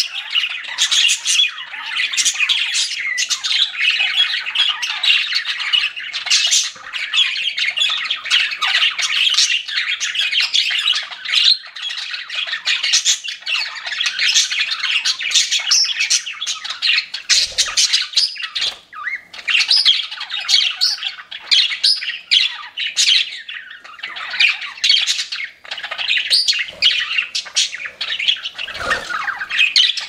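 Budgerigars chirping and warbling in a continuous stream of quick chirps and chatter.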